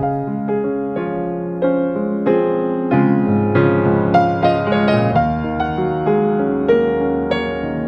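Background music: a gentle piano melody of notes struck about every half second, with sustained chords underneath.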